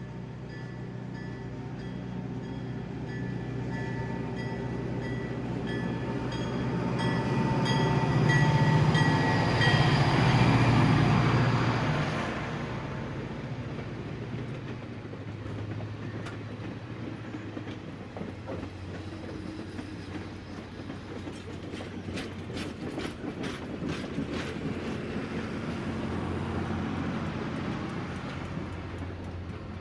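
N scale model freight train running past: a steady hum with a repeating tone in the first ten seconds, loudest about ten seconds in as the locomotive goes by. Then comes the light rattle of the freight cars' wheels on the track, with a run of quick clicks a little past the middle.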